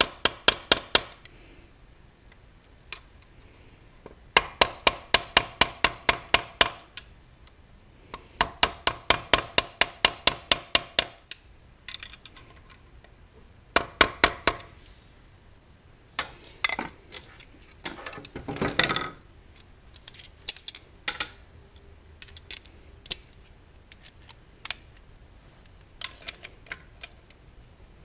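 Quick light metal taps, about six a second in runs of two or three seconds, steel striking a screwdriver to bend back the locking tabs on the REO lawn mower engine's connecting rod bolts. Later come scattered clinks of tools on the engine and a brief scrape.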